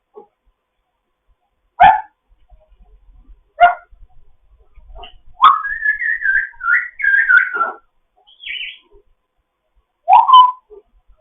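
African grey parrot calling: a few short sharp calls, and a warbling whistle of about two seconds in the middle that wavers up and down in pitch.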